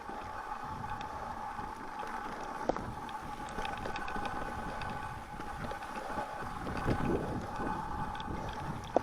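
Mountain bike riding along a trail: a steady high-pitched hum over a rolling rumble from the tyres, with a few sharp knocks as it hits bumps.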